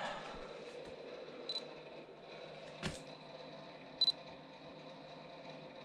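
Compact digital camera taking pictures: a short high beep about one and a half seconds in, a sharp click near three seconds, and another short beep about four seconds in.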